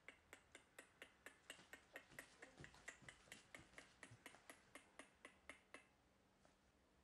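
A fast, even run of sharp clicks, about four a second, that stops about six seconds in.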